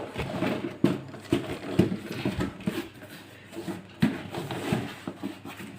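A subwoofer's cardboard packing box being handled and turned over: scattered soft knocks and scuffs, about one or two a second.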